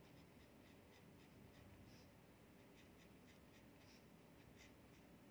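Pen writing on paper: faint scratching of the nib in short strokes, several a second.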